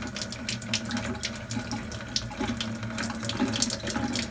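Water running steadily and splashing into a sink from a Kangen K8 water ionizer's two outlets: alkaline water from the top spout and acidic water from the bottom hose.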